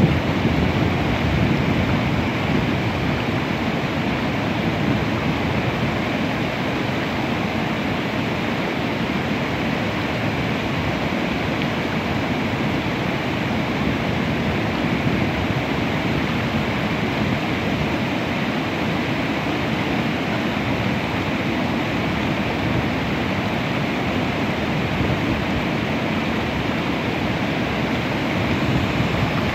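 River water pouring over a low dam: a steady rush of whitewater.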